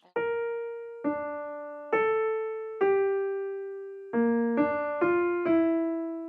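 Background music: a slow, gentle piano melody of single struck notes that ring and fade, about one a second, with a few quicker notes about two thirds of the way in.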